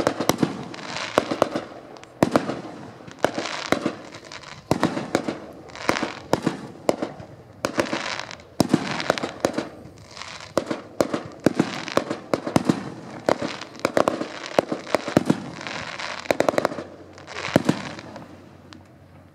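Fireworks display: aerial shells bursting one after another, roughly one a second, each sharp bang followed by a spell of crackling that dies away, with the bursts thinning out near the end.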